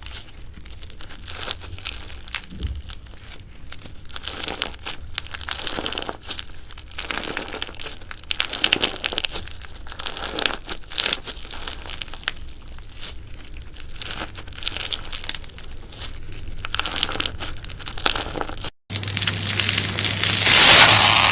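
Slime being squished and pressed by hand, making a steady run of small crackling pops and clicks. After a momentary break near the end, the crackling comes back denser and louder.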